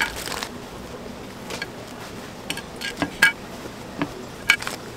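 Kitchen knife clinking and tapping on a ceramic plate while a sausage is cut and pushed onto wooden skewers: about eight sharp, scattered clicks, the loudest a little past halfway.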